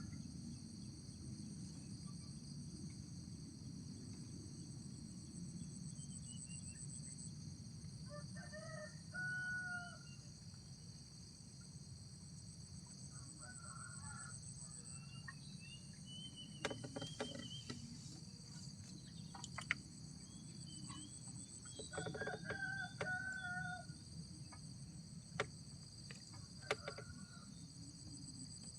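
A rooster crowing faintly three times, over a steady high insect drone and a low rumble, with a few sharp clicks.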